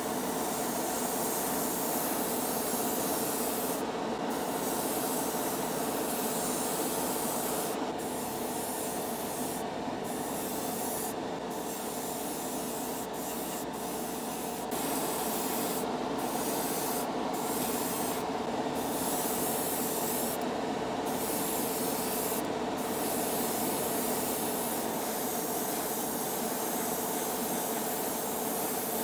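Airbrush hissing as it sprays paint, over the steady hum of a hobby spray booth's extractor fan; the hiss breaks off for a moment about ten times, as the trigger is let go between passes.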